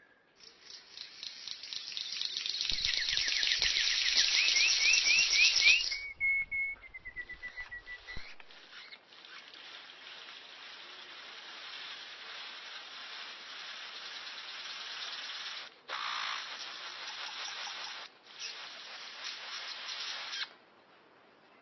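Bird calls: rapid chattering trills with a few short rising whistles in the first few seconds and a brief held whistle, then a long steady hiss broken by several abrupt cuts.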